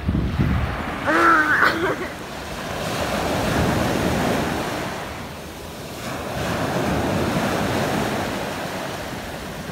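Small sea waves breaking and washing up a sandy beach, in two slow swells a few seconds apart, with wind on the microphone. A brief voice sounds about a second in.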